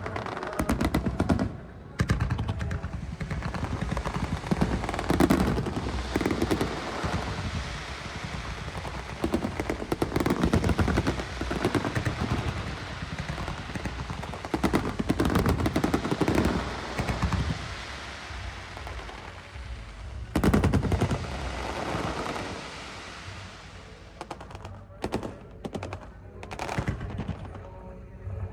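Rapid fireworks barrage: a dense run of bangs and crackling shell bursts, with several louder booms. It thins out to scattered separate cracks near the end.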